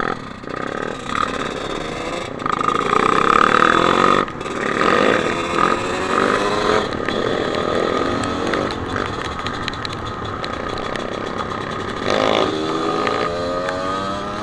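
Enduro dirt bike engine heard from on board the bike, its pitch rising and falling as the rider works the throttle, with a rev rising steadily about twelve seconds in.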